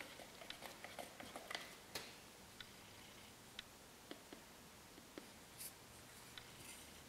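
Faint clicks and light scraping of a wooden stir stick working a primer-and-converter mix in a plastic mixing cup, thickest in the first couple of seconds, then a few scattered ticks.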